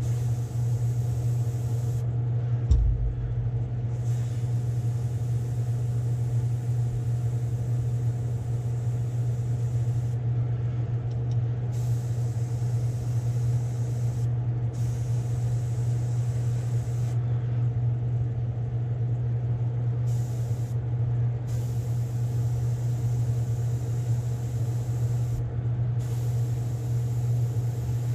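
Spray booth exhaust fan humming steadily, with an airbrush's hiss stopping and starting every few seconds as it sprays a light coat of black paint. A single low thump about three seconds in.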